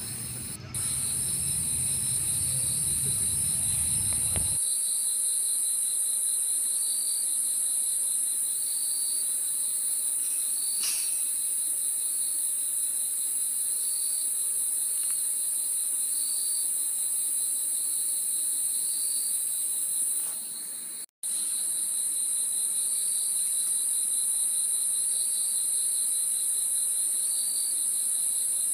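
Night insects chirping in a chorus: a steady high-pitched drone with a shorter chirp repeating about every second and a half to two seconds. A low rumble under it for the first four seconds or so cuts off suddenly, and the sound drops out briefly about twenty-one seconds in.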